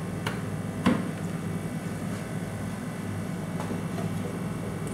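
Two short clicks, the second louder, as a diagnostic card is pushed into a motherboard's PCI slot, over a steady low hum.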